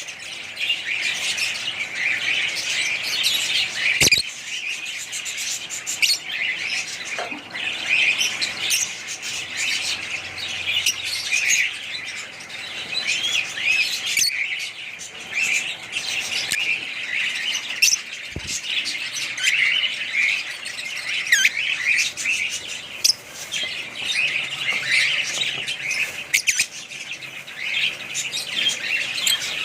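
A flock of small cage birds chirping and squawking continuously in a dense chatter, with two sharp knocks, one about four seconds in and one a little past halfway.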